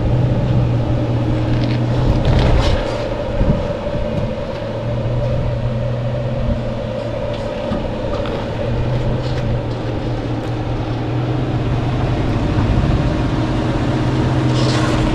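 A first-generation Toyota truck's engine running at low crawling speed over rock. Its steady drone dips and comes back several times, and there are a few brief knocks about two to four seconds in.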